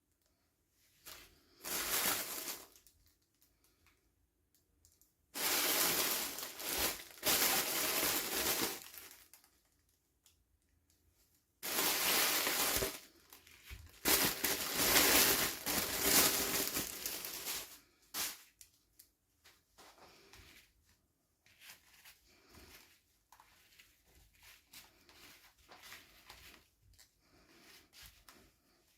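Toy packaging being torn open and crinkled by hand in three long noisy spells, then faint light handling sounds in the second half.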